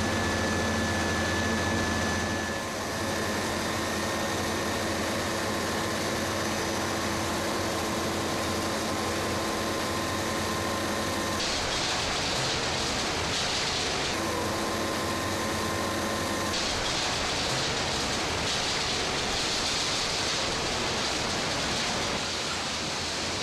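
Palm oil mill machinery running: a steady mechanical hum with several held tones. The hum gives way, at sudden changes, to stretches of loud, even hiss, first about halfway through and again for most of the second half.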